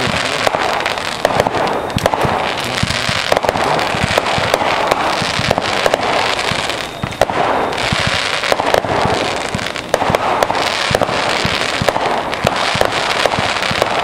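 Consumer fireworks going off in a dense, continuous barrage: rapid crackling and popping packed with many sharp bangs, with barely a break.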